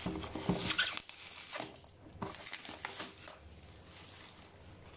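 Plastic bubble wrap and a plastic courier pouch crackling and rustling as a box is pulled out and unwrapped. A run of sharp crinkles dies down after about three seconds.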